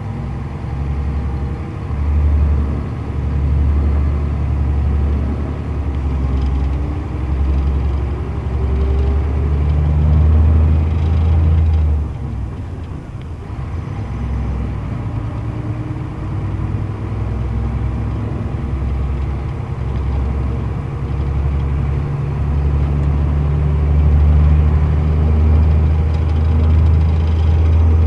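Scania K114 IB coach's diesel engine heard from inside the passenger cabin, with a deep drone pulling the coach up to speed. Its pitch rises in stretches, there is a short lull about twelve seconds in, and it grows louder and steadier toward the end.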